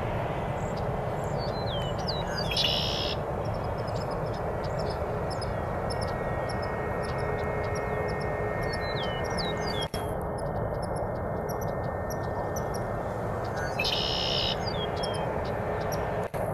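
Steady distant jet-engine rumble from airliners on the runway and taxiway, with small birds chirping over it and a short bird phrase twice, near the start and about three-quarters through. The sound drops out for an instant twice in the second half.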